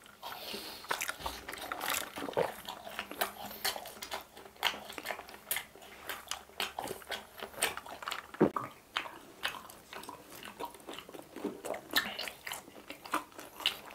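Close-miked biting and chewing of crunchy fried chicken snacks and cheese balls: a continuous run of short, crisp crunches and crackles.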